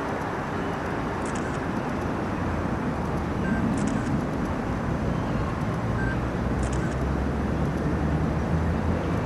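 Steady outdoor background noise with a low rumble, and a faint tick about every two and a half seconds.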